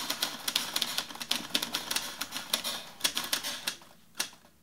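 Typewriter keys clacking in rapid succession, a sound effect for a title being typed out letter by letter. The clacking thins out after about three and a half seconds, with one last clack a little after four seconds.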